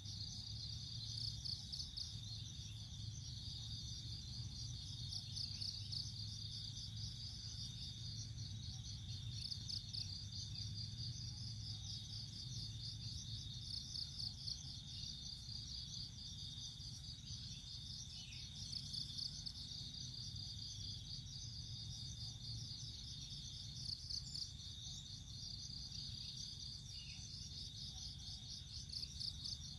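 Insect chorus: a continuous high-pitched trilling of rapid, even pulses with a steady high whine beneath it, over a low rumble.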